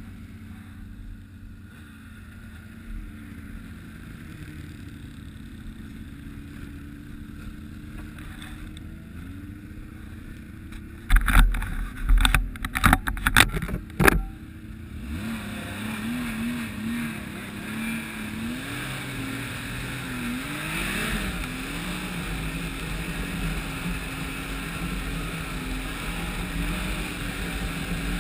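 Ski-Doo snowmobile engine running on the move, its pitch rising and falling with the throttle. A cluster of loud sharp knocks comes about eleven to fourteen seconds in, after which the engine and the rush of wind and snow grow louder as the sled picks up speed.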